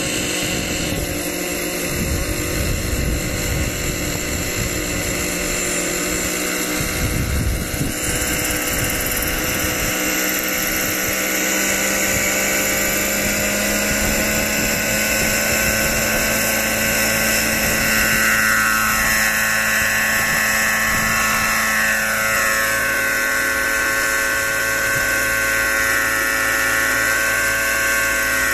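Engine-powered radio-controlled helicopter running on the ground and then lifting off with its smoke system on: a steady high-pitched engine whine with rotor whir. A low rumble sits under it for the first seven seconds or so, and the pitch slides up and down a few times about two-thirds of the way through.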